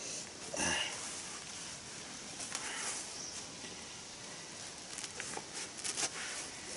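Soft rustling and rubbing as a black back-support belt is handled and wrapped around the waist, in a few short spells with small clicks near the end, over faint outdoor ambience.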